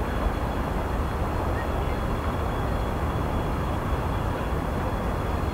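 Soviet LV-class steam locomotive LV-0522 approaching slowly, heard from a distance as a steady low rumble with a hiss above it.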